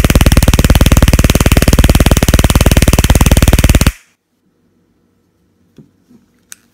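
TASER X26 stun gun arcing against a grape: a loud, rapid electric crackle of about twenty clicks a second that cuts off sharply about four seconds in.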